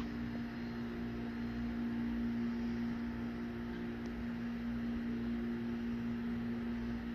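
A steady low hum with a few held tones over a faint hiss, unchanging throughout; no wind or rain is heard.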